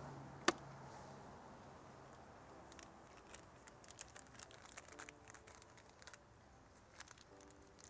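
Faint handling noise of a plastic car airbox in gloved hands: one sharp click about half a second in, then scattered light ticks and crinkles.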